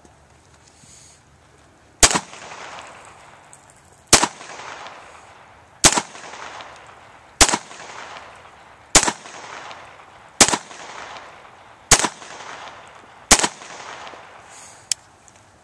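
.22 rimfire pistol fired eight times at a steady pace, about one shot every one and a half seconds, each crack followed by a short echoing tail. A lighter sharp click follows shortly after the last shot.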